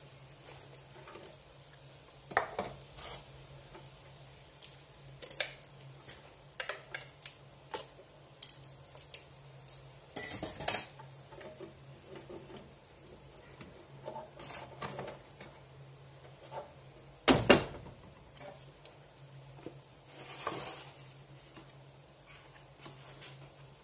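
Plastic kitchenware handled on a stone countertop: a plastic mixing bowl and a plastic food container knocked and set down in scattered clicks and clatters, with louder knocks about ten and about seventeen seconds in.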